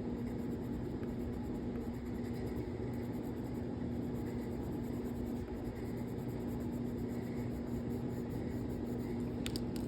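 Colored pencil scratching softly on paper as orange is layered over brown to draw fur, over a steady background hum. A couple of light ticks near the end.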